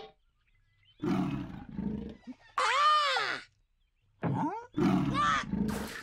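Roaring animal calls, four in a row with short silent gaps; the second rises and then falls in pitch.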